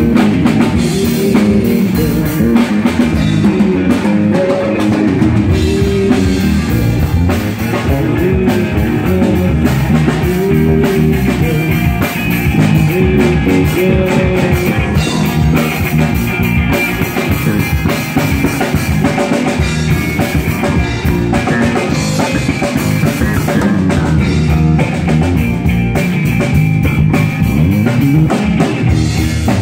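Live rock band playing loud, with electric guitars over a drum kit.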